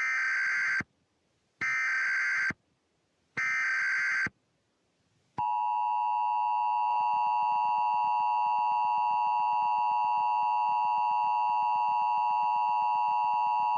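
Emergency Alert System tones. First come three short, identical bursts of SAME header data tones, about a second apart. Then, about five seconds in, the steady two-tone EAS attention signal starts and holds.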